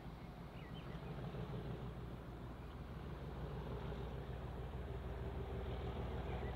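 Locomotive running with a steady low drone that grows gradually louder, as of a light engine drawing nearer.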